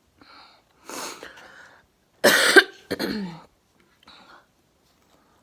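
A person coughing several times in short bursts, the loudest cough about halfway through.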